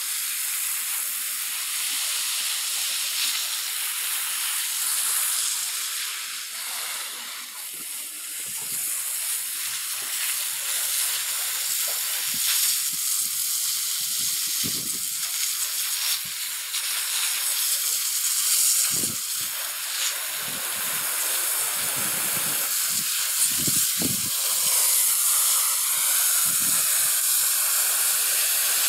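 Water spraying from a garden hose nozzle in a steady hiss, the jet splashing onto soil, mulch and plants. A few brief dull thumps come in the second half.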